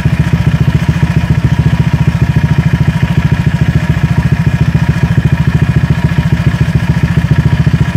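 Honda Vario scooter's single-cylinder four-stroke engine idling steadily through an R9 Misano aftermarket exhaust: a loud, even run of fast exhaust pulses.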